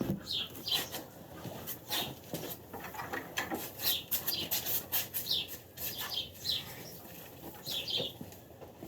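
Short high chirps or squeaks from a small animal, repeating every second or so, with rustling and sharp clicks in between.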